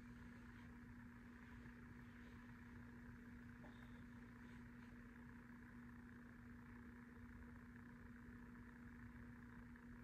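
Near silence: faint, steady room hum with one constant tone.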